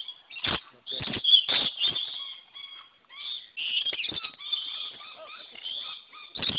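A crowd of lorikeets screeching and chattering, with short rising calls in the middle. Several sharp knocks and rustles close by, from wings and handling, come in the first two seconds and again near the end.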